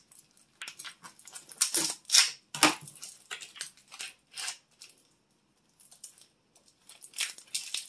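Plastic kielbasa packaging crinkling and rustling in short, irregular bursts as it is opened and the sausage is pulled out, loudest a couple of seconds in.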